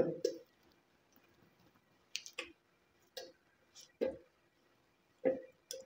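Knife cutting ripe papaya by hand over a plastic blender jar: a few light clicks and soft taps at irregular intervals as the blade goes through the flesh and the pieces drop into the jar.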